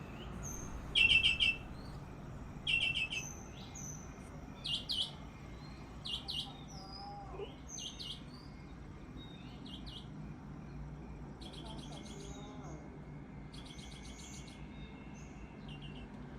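Birds chirping in short runs of rapid high notes every second or two, loudest at the start and thinning out later, over a steady low hum of distant city noise.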